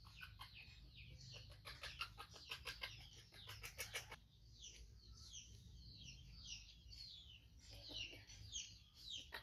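Faint, rapid high-pitched bird chirps, each a short falling note, repeating throughout. A quick run of clicks sounds during the first four seconds.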